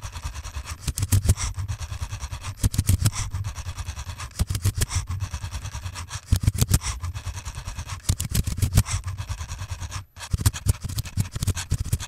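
LEGO Boost Rubik's Cube solving robot at work, its motors and the clatter of the cube being turned and flipped played back fast so they run together into a rapid mechanical rattle. A brief break comes about ten seconds in.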